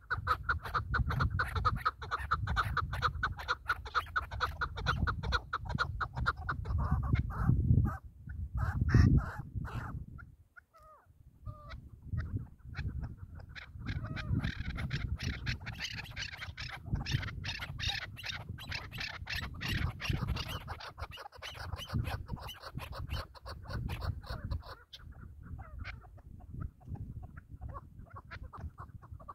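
Chukar partridges calling in rapid, repeated clucking series, pausing briefly about ten seconds in before starting again.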